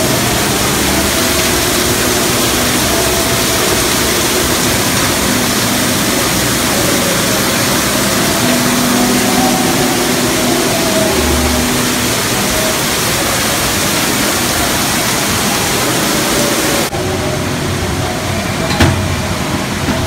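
Loud, steady rushing noise with faint voices under it, cutting off abruptly about three seconds before the end to a quieter hiss.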